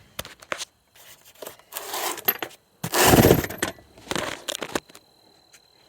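A car's spare tire being handled into place, with metal clinks and scrapes and one loud, heavy scrape or thump about three seconds in.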